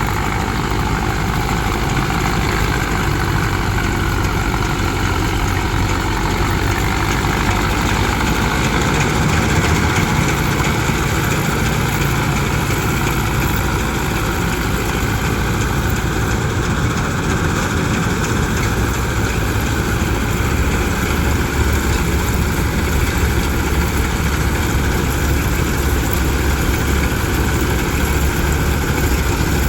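Heavy diesel engine of farm machinery running steadily under load, its low note shifting slightly a couple of times.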